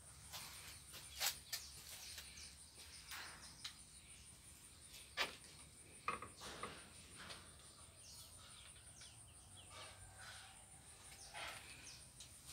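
Quiet outdoor ambience: a steady faint high-pitched insect drone and a few faint bird chirps, with scattered clicks and rustles, the loudest about a second in and around five to six seconds in.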